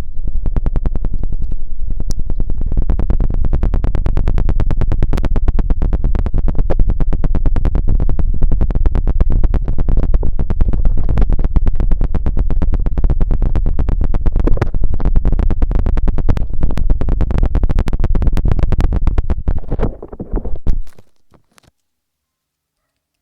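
Rapid, continuous rubbing on a binaural microphone's ears during an ASMR ear massage: a loud, fast, bassy run of strokes that stops suddenly about 21 seconds in.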